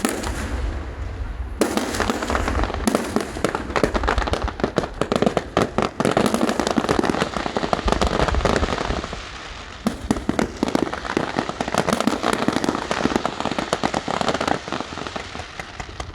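Fireworks going off in a dense, rapid barrage of crackling reports, many a second, easing briefly about two-thirds of the way through and then picking up again before thinning out near the end.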